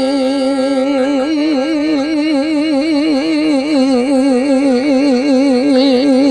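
A folk song: one long sung note is held throughout. It is steady at first, then from about a second in wavers in a wide, even vibrato about four times a second, over quiet accompaniment.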